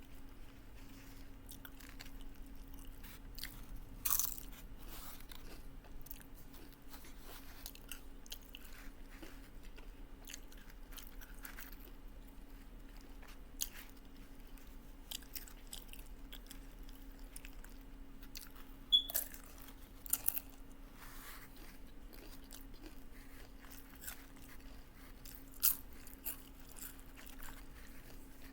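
A person chewing taco salad with tortilla chips close to the microphone: irregular crisp crunches and bites, a few of them much louder and sharper past the middle, over a faint steady hum.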